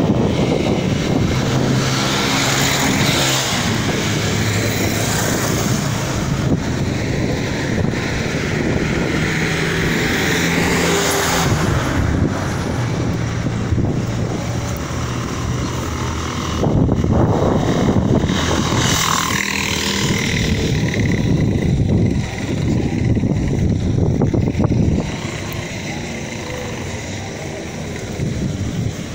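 Road traffic on a highway: several vehicles, motorcycles among them, pass one after another, their engine and tyre noise swelling and fading over a steady traffic hum.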